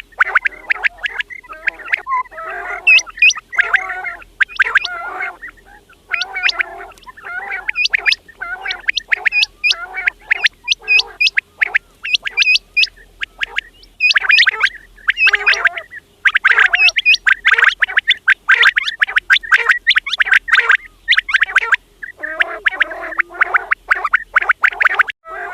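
Quails calling: fast runs of short, sharp chirping notes in bursts with brief pauses between them, mixed with lower gurgling warbles.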